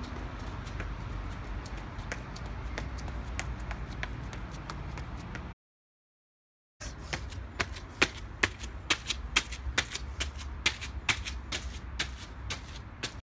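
Running shoes striking stone stair steps: light, spaced footfalls at first, then after a short dropout about five seconds in, sharper, quicker steps about four a second. A low rumble sits underneath throughout.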